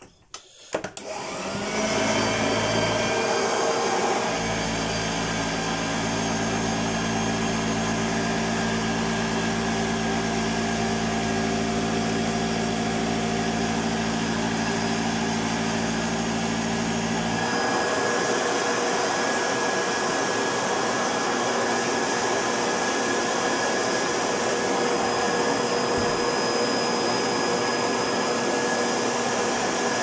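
Hoover Junior High Power Compact U2128 upright vacuum cleaner switched on: the motor runs up to speed about a second in, then runs steadily, drawing air through a Numatic Henry bag fitted to it, which is working. About halfway through, its deep lower hum drops away while the motor keeps running.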